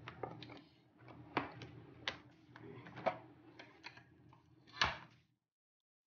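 Irregular clicks and knocks of plastic toy-blaster parts and cardboard packaging being handled, the loudest knock near the end.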